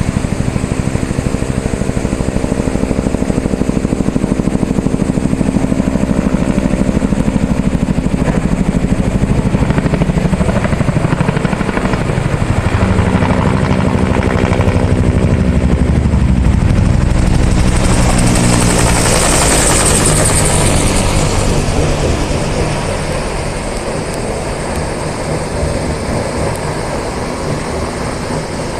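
Helicopter rotor chop and engine close by, swelling as it comes in and passing nearest about two-thirds of the way through with a rushing hiss and a falling pitch, then fading as it moves away.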